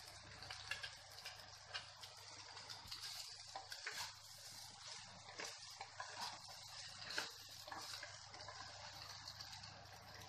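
Rice and vegetables frying in a hot wok: a faint steady sizzle as cooked basmati rice is tipped in and turned, with light clicks and scrapes from the spatula against the pan.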